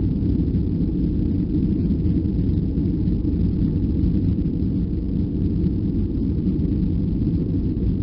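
Steady low rumble inside the cabin of a Boeing 737-400 jetliner: its CFM56 engines and the airflow, heard from a passenger seat, holding even without rising or falling.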